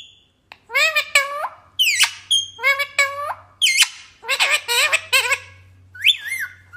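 Pet parrot calling: a quick series of about ten short, high calls, each sliding up and down in pitch.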